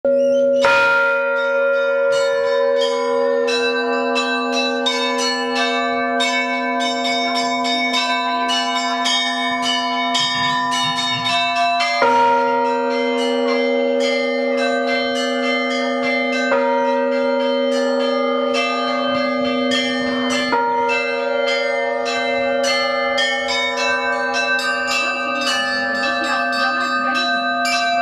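Orthodox church bells rung from a belfry. A large bronze bell is struck a few times, and its deep hum rings on between strokes, while smaller bells are struck rapidly and rhythmically over it.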